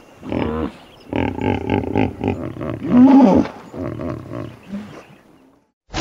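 Hippopotamus calling: a run of grunting calls with bending pitch, loudest about three seconds in and fading out about five seconds in.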